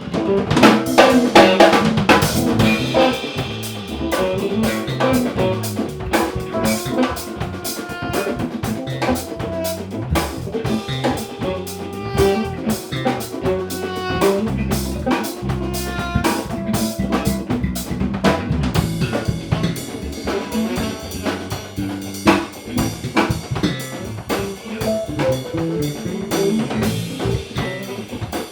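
Band jamming in A minor: a drum kit with snare and bass drum keeps a busy beat under bass and other pitched instruments.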